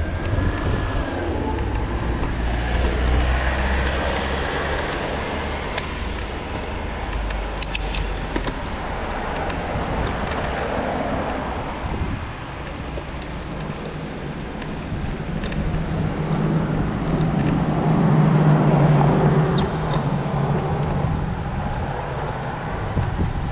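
Road traffic: several vehicles pass in swells of tyre and engine noise. The loudest passes about three-quarters of the way through, with a low engine hum.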